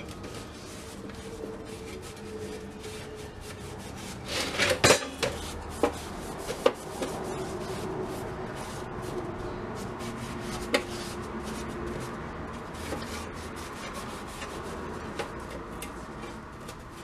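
A rag scrubbing and wiping the dirty bottom unit of a gumball machine to degrease it: a steady rubbing, with a few sharp knocks as the part is handled, the loudest about five seconds in.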